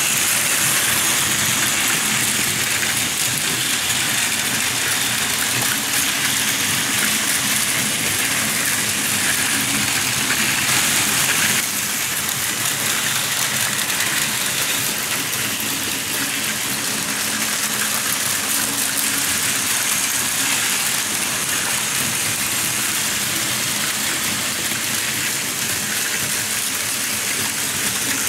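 Several battery-powered Plarail Advance toy trains running on plastic track: a steady whirring of small motors and gears mixed with the rattle of wheels over track joints. The level drops slightly about twelve seconds in.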